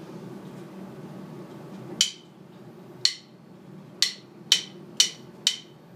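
Six sharp percussive clicks counting in a song: two a second apart, then four twice as fast, over a faint low hum.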